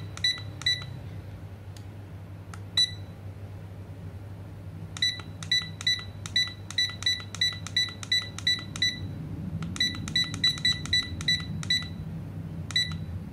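Wooden cube digital alarm clock beeping once for each press of its setting buttons. Short high beeps: a few single ones at first, then quick runs of about four a second as the time is stepped.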